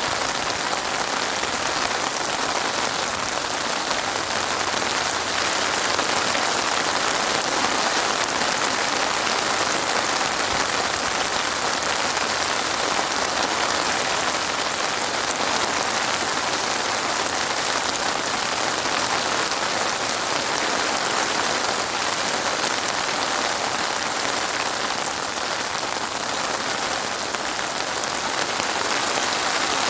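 Steady rain falling, an even hiss of many drops without let-up.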